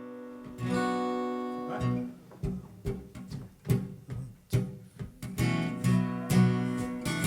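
Acoustic guitar intro: a held chord rings out, then single strums and plucked notes at a steady pulse, building into fuller strummed chords near the end.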